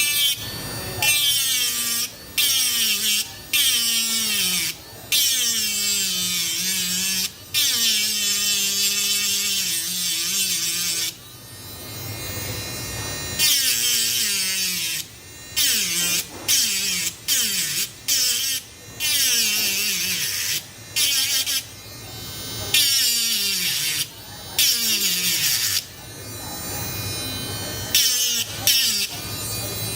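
A small electric power tool running in repeated short bursts with brief stops between them, its pitch falling during many of the runs.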